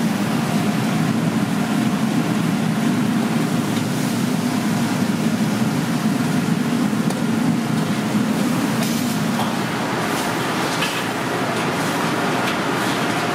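Steady roar of a busy commercial kitchen, the rumble easing a little about ten seconds in, with a few light clinks.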